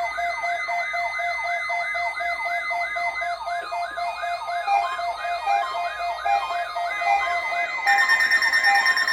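Electronic siren-style alert tone: a fast wail sweeping up and down about three times a second over steady tones, with the steady tones growing louder about eight seconds in.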